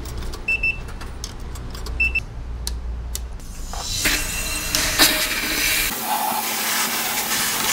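Coin-operated car wash selector panel giving two short beeps as its buttons are pressed, over a low hum. About three and a half seconds in, the high-pressure wash wand starts spraying with a steady hiss; the low hum stops about six seconds in.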